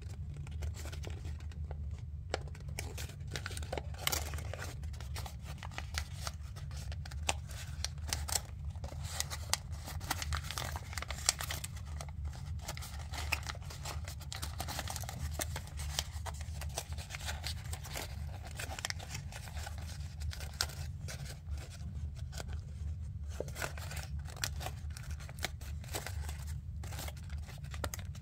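Origami paper being folded and creased by hand: a run of small, uneven crackles and rustles as the many-layered paper is pinched and pressed between the fingers.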